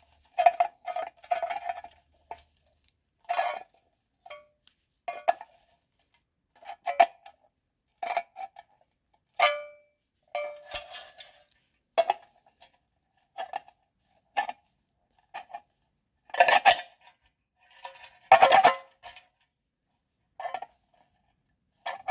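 Irregular metallic clanks and scrapes as a bent metal part inside a 1963 payphone's coin mechanism is bent back into shape. Some knocks ring briefly, and the loudest come in two clusters near the end.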